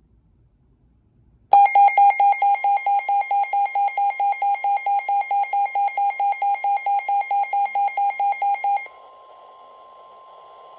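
Midland WR-120 weather radio going off with a loud, rapid pulsing alert beep, about five beeps a second. After about seven seconds the beeping stops and the radio opens to the NOAA Weather Radio broadcast: the steady 1050 Hz warning alarm tone over light static, which signals that a warning message is about to be read.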